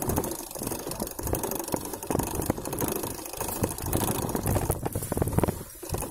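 Mountain bike riding over a rough dirt trail, heard from a handlebar-mounted phone: the bike rattles and clatters in rapid clicks over a constant low noise.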